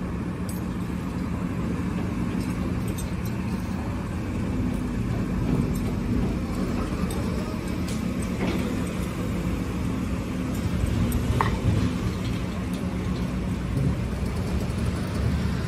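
Telehandler's diesel engine running steadily with a low hum, and a couple of light clicks about eight and eleven seconds in.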